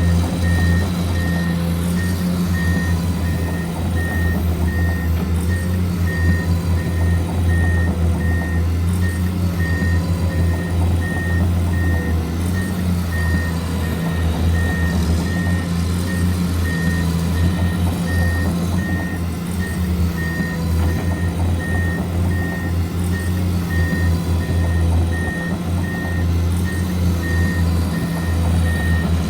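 Reversing-alarm beeps from an RC construction model's sound unit, one beep repeating steadily, over a loud, steady, low simulated engine drone.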